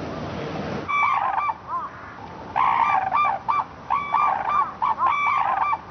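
Red-crowned cranes calling: a short run of rapid, arching calls about a second in, then a longer run of quick repeated calls from about two and a half seconds.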